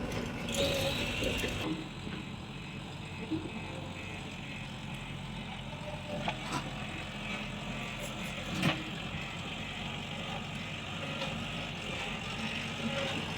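Heavy diesel construction machinery running steadily, louder for a second or so near the start, with a few sharp metallic knocks, the loudest about two-thirds of the way through.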